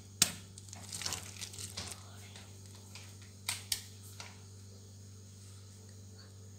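A piping bag crackling in the hand as it is squeezed to pipe whipped cream. The crackles are scattered through the first two seconds, with two sharper ones about three and a half seconds in, over a low steady hum.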